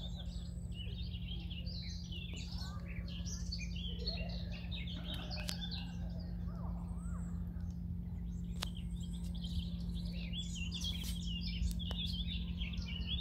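Small birds chirping and twittering busily over a steady low hum and rumble, with a couple of sharp clicks.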